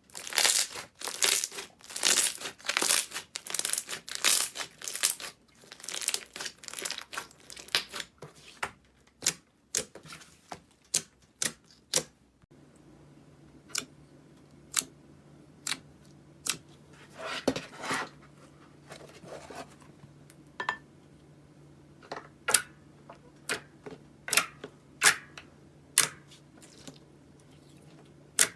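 Slime being squeezed and pressed by hand, with dense crackling and popping at first, then separate sharp pops and clicks over a low steady hum.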